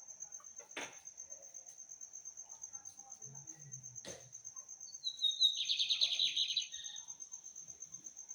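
A seedeater sings one short, fast phrase of rapid repeated notes about five seconds in, opening with a falling note. Under it, an insect keeps up a steady high-pitched pulsing trill.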